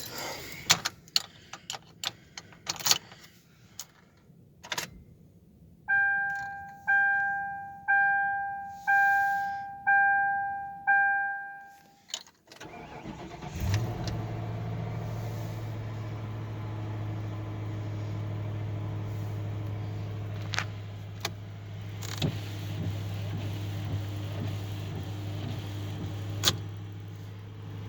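Scattered clicks, then the car's warning chime dings six times about a second apart. About 13 seconds in, the 2003 Crown Victoria Police Interceptor's 4.6-litre V8 cranks briefly and catches on the first crank on a cold start, then settles into a steady idle.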